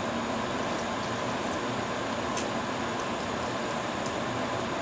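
Steady, even hiss of a kitchen with a pot of milk heating on a gas hob, with one faint tick about halfway through.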